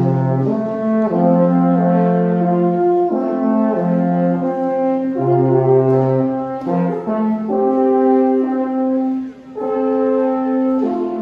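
Two alphorns playing a slow duet of long held notes, one part low and one higher, stepping from note to note, with a brief break about nine seconds in.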